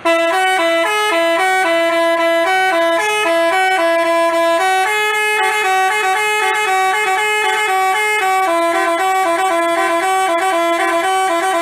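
Basuri telolet bus horn, a multi-tone musical horn, playing a loud tune of quickly changing notes.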